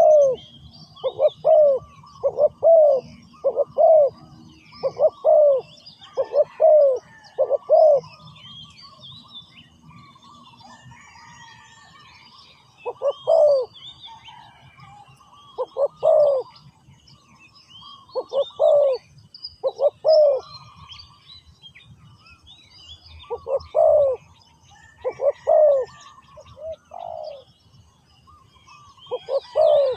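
Spotted doves cooing: low, rounded coos in runs, about eight in quick succession over the first eight seconds, then shorter groups separated by pauses. Small birds chirp faintly in the background.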